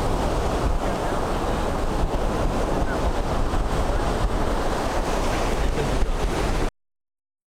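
Ocean surf breaking on the beach, with wind buffeting the microphone in a steady low rumble. The sound cuts out abruptly near the end.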